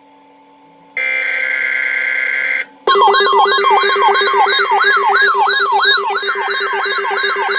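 Emergency weather alert signals: after a faint hum, a buzzy digital data burst lasts nearly two seconds. Then, about three seconds in, a loud warbling, siren-like alert tone begins, with several pitches sweeping up and down over steady tones.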